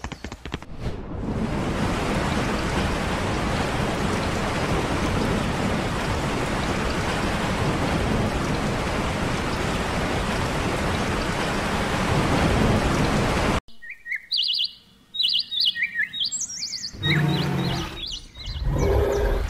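Steady downpour of rain, an even hiss that cuts off suddenly about two-thirds of the way through. Birds chirp after it, and a louder low sound comes near the end.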